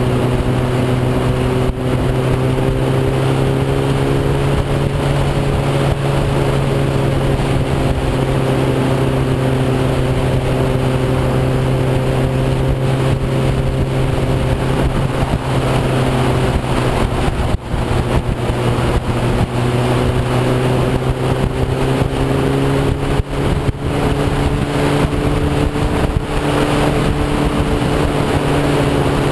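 Motorcycle engine running at a steady cruise, its pitch drifting slightly up and down, under heavy, constant wind noise on the microphone.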